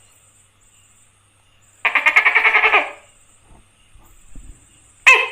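Tokay gecko's rattling churr: a rapid string of pulses lasting about a second, starting about two seconds in. Right at the end the first loud, sharp note of its call begins.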